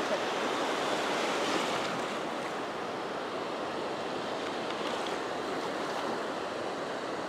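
Small surf waves breaking and washing over the shallows at the water's edge, a steady rushing wash.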